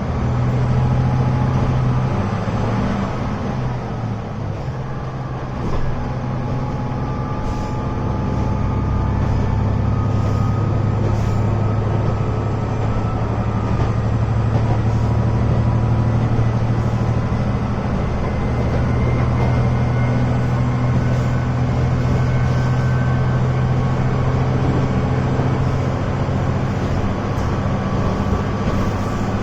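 Diesel railcar running between stations, heard from inside the cabin: a steady low engine drone over rail and wheel noise, with a faint whine slowly rising in pitch.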